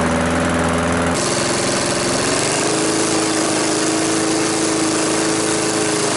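Walk-behind lawn mower's small engine running steadily. Its tone changes abruptly about a second in, and its pitch steps up slightly about two seconds in.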